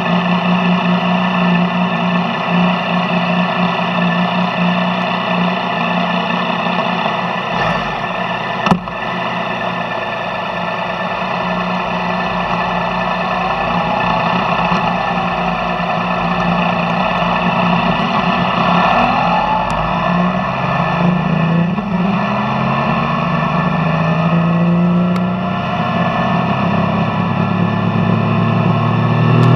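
Yamaha Tracer motorcycle engine running through its stock exhaust, steady at first. In the last ten seconds or so its pitch rises and drops back several times as the revs climb and fall. A single sharp click about nine seconds in.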